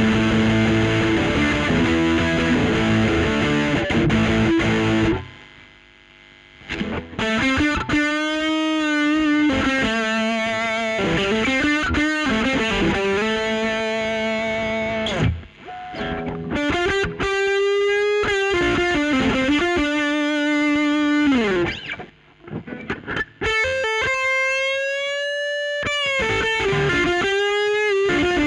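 Electric guitar played through a Boss DS-1 distortion pedal. Dense distorted chords for about the first five seconds, then, after a short pause, sustained single-note lead lines with vibrato and string bends.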